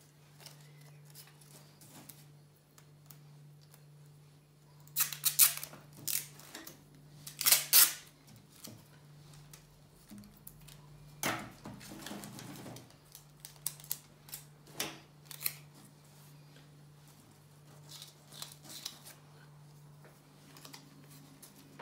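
Sellotape pulled off the roll in short rasping rips and snipped with scissors, with paper and straws handled on a table between. The loudest rips come in two clusters, about five and seven and a half seconds in.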